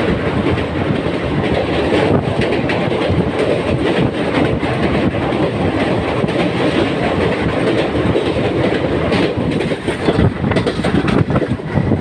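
Barauni–Gondia Express express train running fast across a river bridge, heard from its open doorway: a loud, continuous rumble of wheels on rail with rapid clickety-clack over the rail joints. The rumble dips briefly about ten seconds in.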